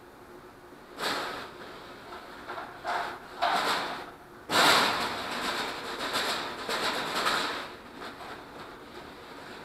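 Electrical wire rustling and scraping as it is dragged across a concrete floor and pulled into the wing's front spar. It comes in spurts: a short one about a second in, two more around three to four seconds, and a longer one from about four and a half to eight seconds.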